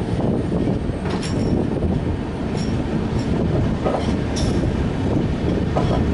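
Rajdhani Express passenger train running along the track: a steady rumble of wheels on rails, with a few short sharp knocks scattered through it.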